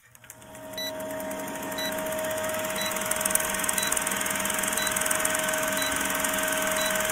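Old film-projector countdown sound effect: a steady whirring hum with fast clatter and a short blip about once a second, keeping time with the countdown.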